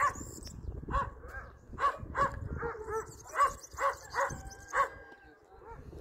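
Dogs barking in a steady run of short barks, about two a second, at a stranger passing by: warning barks meant to alert the owner.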